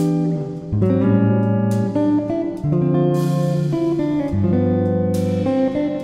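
Background music: a string-led tune with held chords that change every second or two.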